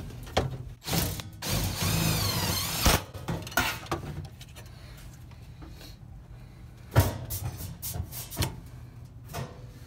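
Thin sheet-steel panel being handled and flexed into place over a truck cab floor: rubbing and knocking of the metal. A louder, wavering stretch of the sheet flexing starts about a second in and lasts over a second, with a string of sharp knocks near the end.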